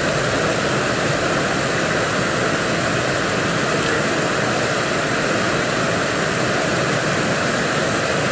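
Water pouring from arching fountain jets in a pool's rain-curtain feature, falling steadily onto the pool surface as a constant hiss like heavy rain.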